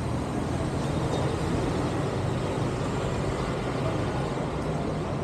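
Steady low rumble of city background noise, traffic-like, with a faint constant hum underneath and no distinct events.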